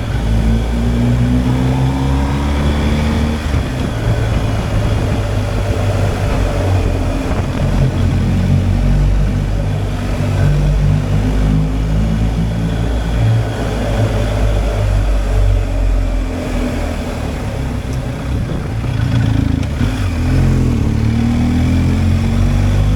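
BMW R 1250 GSA's boxer twin engine running under way, its pitch rising and falling as the rider accelerates and eases off, over a steady rush of wind noise.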